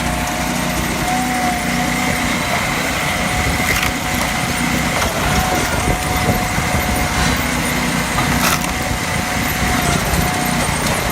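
A small engine running steadily, with a steady high whine over it and two short sharp knocks, about 4 and 8.5 seconds in.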